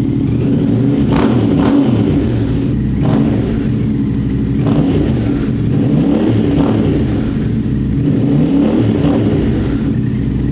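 Yamaha Ténéré 700's 689 cc parallel-twin engine running through an aftermarket high-mount exhaust with the baffle removed, loud and deep, revved up and down repeatedly with short throttle blips.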